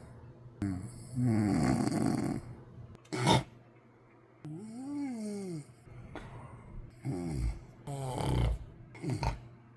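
A man snoring in his sleep: irregular rough snores, with a sharp snort about three seconds in and a drawn-out tone that rises and falls in pitch just before halfway, then a few more snores near the end.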